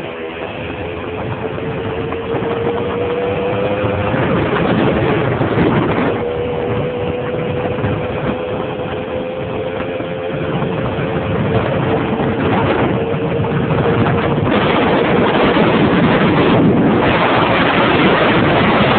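Simson moped's two-stroke engine running while riding, its tone holding steady and creeping slowly upward. A dense rushing noise lies under it and grows louder over the last few seconds.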